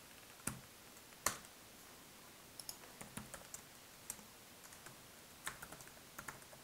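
Faint computer keyboard typing: two sharper clicks about half a second and just over a second in, then a run of light keystrokes.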